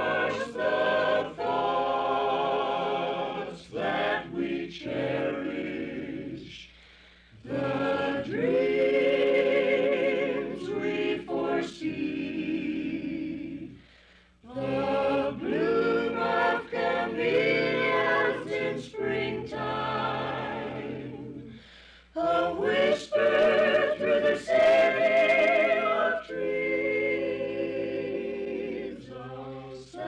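Small mixed vocal group of men and women singing a radio station jingle in harmony, in sung phrases with three short breaks for breath.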